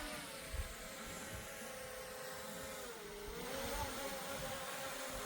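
A motor running with a steady hum, its pitch dipping and then rising again about three seconds in.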